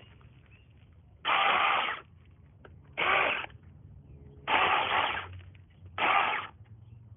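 Small cordless electric mini chainsaw running in four short bursts, each well under a second, with brief pauses between.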